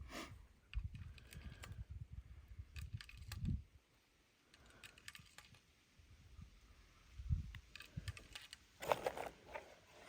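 Quiet handling noise: scattered small clicks and rattles, with irregular low rumbling, heaviest in the first few seconds and again near the end. No shots.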